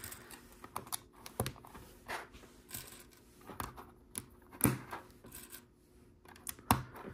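LEGO bricks clicking: small plastic pieces being picked up, rattled and pressed onto the build, an irregular run of light clicks with a few sharper snaps, the loudest near the middle and near the end.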